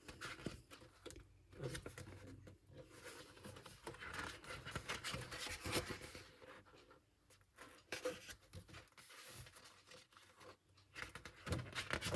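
Paper handling: photobook pages being turned and handled, with irregular soft rustles and small clicks.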